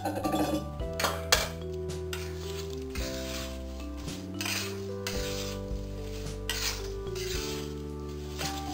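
Metal spatula stirring and scraping a thick, sticky mixture of urad dal flour and sugar syrup around a kadai in repeated strokes, over background music.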